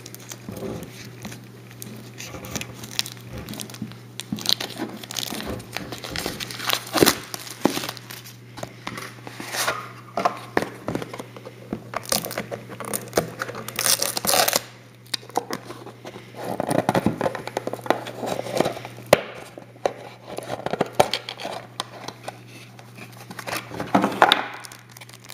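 Plastic wrapping on a baseball card pack crinkling and tearing as it is opened by hand, in irregular rustles and crackles, over a steady low hum.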